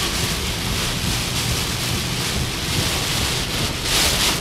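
Heavy rain beating on a car's roof and windshield and tyres hissing through standing water, heard from inside the moving car; it gets a little louder and hissier near the end.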